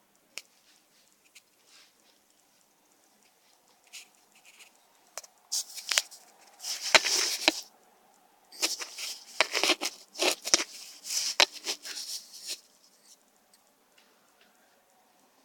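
Cardboard shipping box being handled and moved on a table: scattered clicks, then two spells of loud scraping and rustling about five and nine seconds in.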